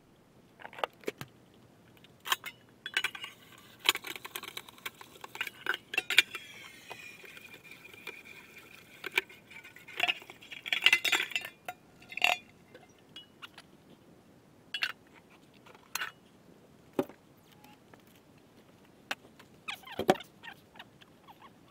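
Dishes and utensils clinking and knocking in a kitchen sink during washing up: scattered sharp clinks, thickest in two busy stretches.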